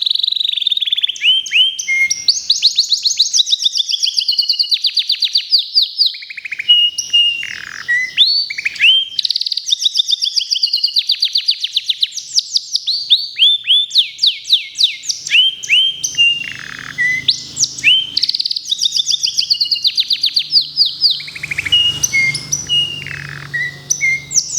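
Domestic canary singing a long, unbroken song made of rapid trills, each a fast run of repeated high sweeping notes, shifting from one trill to the next.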